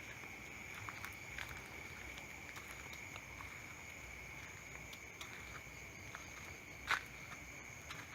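Steady chorus of night insects: a continuous high trill at two pitches, with scattered small clicks and rustles and one sharper click about seven seconds in.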